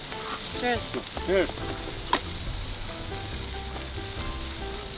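Food sizzling on a grill over a wood campfire, a steady hiss, with one sharp click about two seconds in. A short spoken reply comes near the start, and soft background music with held notes runs underneath.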